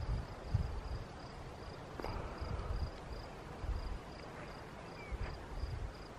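Wind gusting on the microphone in irregular low buffets, with a faint high chirp repeating evenly about three times a second.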